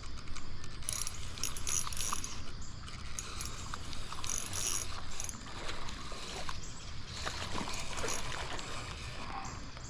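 Fishing reel being cranked in, its gears and ratchet clicking in a quick, uneven run of ticks, with stream water running behind.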